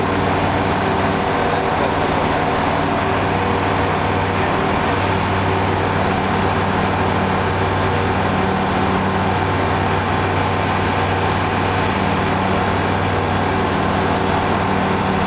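Ultralight aircraft's engine and propeller droning steadily in flight, heard from inside the cockpit; the pitch holds level throughout.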